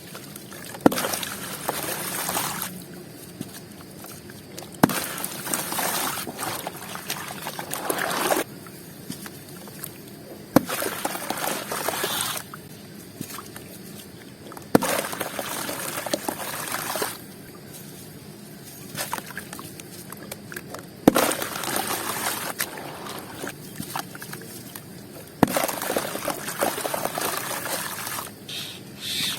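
Dry, crunchy crumble pieces dipped into water one after another, six times: each starts with a sharp tap, followed by a second or two of fizzing, crackling and trickling as the piece soaks and crumbles.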